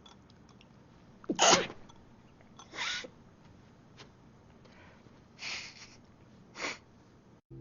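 A person sneezing four times in a row, each a short noisy burst, the first one the loudest.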